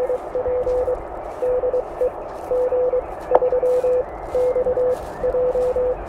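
Morse code (CW) from an Elecraft K1 transceiver: a single steady tone keyed on and off in dots and dashes over a constant band-noise hiss. One sharp click comes a little past halfway.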